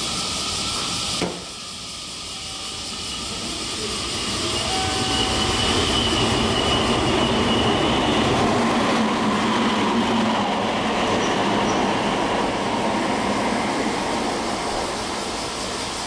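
Meitetsu red electric train passing through a station at speed without stopping. The rumble of wheels on rail swells from about four seconds in, is loudest in the middle, and fades near the end, with a faint high whine early in the pass.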